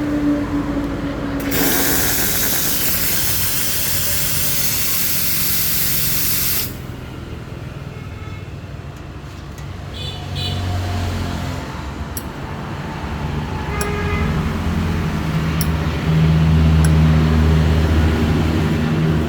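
Espresso machine warming up: the steam wand hisses loudly for about five seconds and cuts off abruptly. Then come a few light clicks and a low machine hum that grows louder over the last few seconds.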